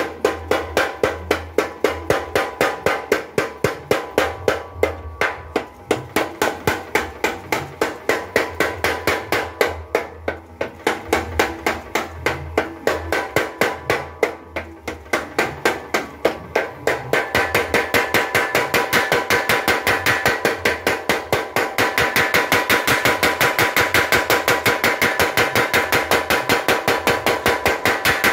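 Power hammer forging red-hot steel on its anvil: a rapid, even train of ringing metal blows, about four to five a second, getting faster and louder about two-thirds of the way in.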